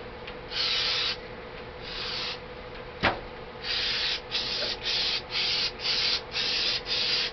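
Aerosol can of paint stripper spraying in short hissing bursts: two separate bursts, then a quick run of about seven, roughly two a second. A single sharp click sounds about three seconds in.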